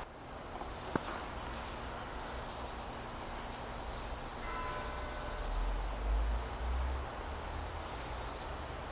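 Steady outdoor background hiss, with a sharp click about a second in, a short high descending call around the middle and a low rumble swelling there for a couple of seconds.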